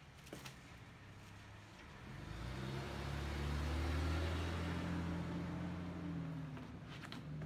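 A motor vehicle passing by: a low engine hum with tyre and road hiss that swells to a peak about halfway through and then fades.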